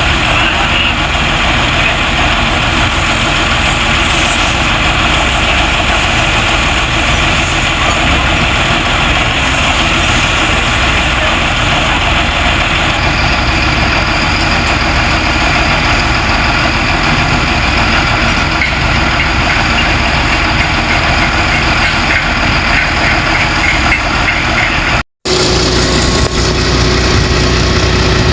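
Heavy diesel engine of construction machinery running steadily. The sound cuts out for a split second near the end.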